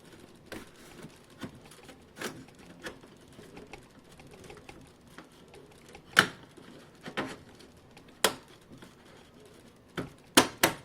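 Plastic clicking and snapping as a credit card is worked in to release the optical (DVD) drive from an HP Pavilion desktop case. Light scattered clicks, with a few sharper snaps in the second half and two close together near the end.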